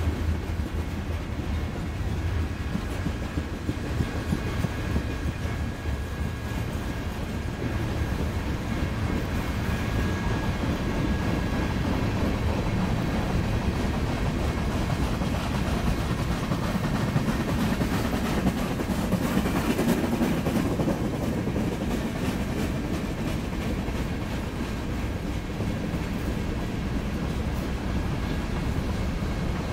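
Freight cars (a pipe-laden flatcar, a tank car, covered hoppers and boxcars) rolling past close by, their steel wheels running on the rail in a steady noise that swells briefly about two-thirds of the way through.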